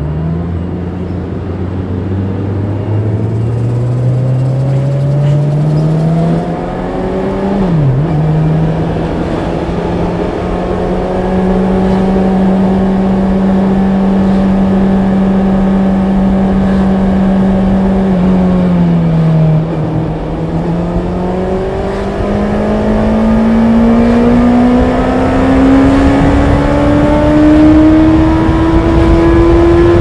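Honda CB650R's inline-four engine under way: the revs climb, drop sharply about eight seconds in as a gear changes, hold steady for several seconds, dip again around twenty seconds, then climb steadily to higher revs near the end.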